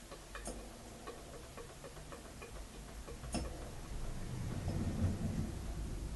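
Small Märklin 4097 model steam engine unit running slowly on steam from a homemade boiler, quiet and smooth, with light mechanical ticking and a couple of sharper clicks. A low hum grows louder in the second half.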